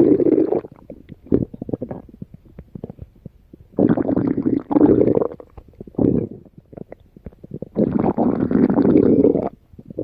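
Stomach growling: long rumbles, one fading out just after the start, then one about four seconds in and another about eight seconds in, each lasting about a second and a half. Softer crackling gurgles fill the gaps between them.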